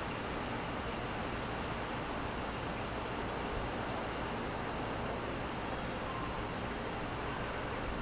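Cicada singing: a loud, steady, high-pitched buzz that runs on without a break or change.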